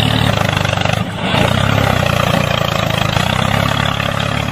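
Truck engine running steadily as the brick-loaded truck pulls away, with a brief dip in level about a second in.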